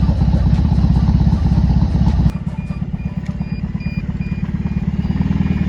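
Custom motorcycle engine over 1200cc running with a fast, even exhaust pulse. About two seconds in the sound cuts abruptly to a quieter take of the engine running.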